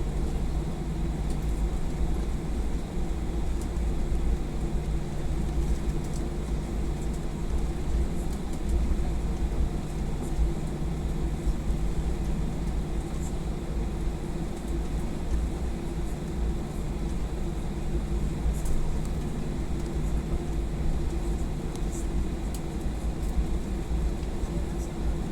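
Steady cabin noise of a jet airliner taxiing on the ground: the engines running at idle under a low rumble, with a few faint clicks and rattles.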